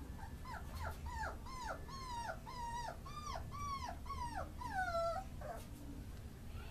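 Beagle puppy whimpering: a quick run of about a dozen high whines, two or three a second, each falling in pitch, ending in a longer whine about five seconds in.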